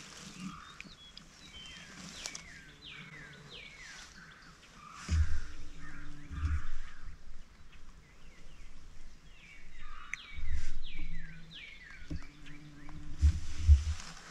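Two series of turkey yelps, each a run of four or five short notes falling in pitch. Several low thumps come between and near the end.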